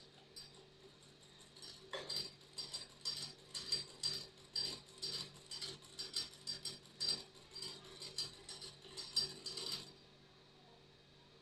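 Old hand-cranked sewing machine stitching: an even run of mechanical clicks from the needle and shuttle, about three a second. It starts softly, gets louder about two seconds in, and stops about ten seconds in.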